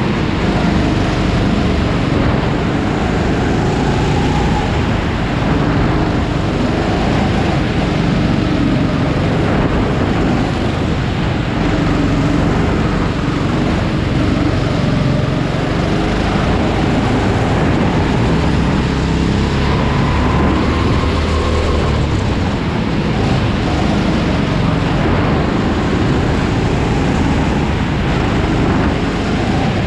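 Go-kart engine running hard from the driver's seat, its pitch rising and falling as the kart accelerates down the straights and slows for the corners.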